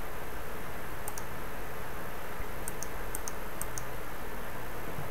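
Computer mouse clicking: about four light double ticks, press and release, between one and four seconds in, over a steady hiss.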